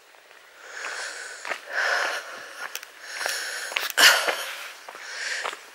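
Heavy breathing close to the microphone, a breath in or out about once a second, with a few light clicks between the breaths.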